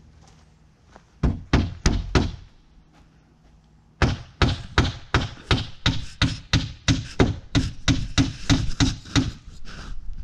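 Hammer driving nails into wooden window trim: a few blows about a second in, then, after a short pause, a steady run of about twenty blows at roughly four a second.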